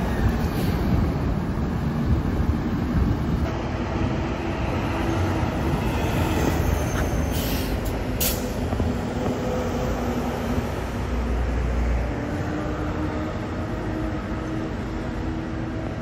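Steady rumble of a moving vehicle, with faint whining tones and two brief sharp clicks about seven and eight seconds in.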